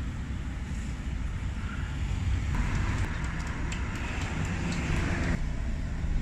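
Low rumble of street traffic. About two and a half seconds in, a hiss starts, with a few faint ticks, and it cuts off abruptly near the end.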